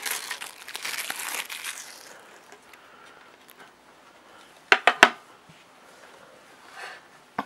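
A shiny plastic wrapper crinkling as it is handled, dying away after about two seconds. About five seconds in come three quick, sharp knocks as a metal card tin is set down on a wooden table.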